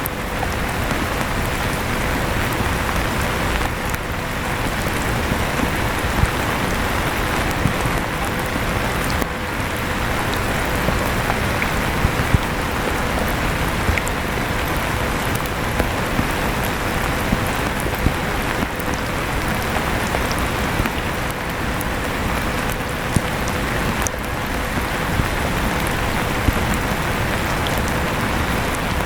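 Steady rain falling with scattered drop ticks, mixed with an electric fan running steadily and a thin constant hum.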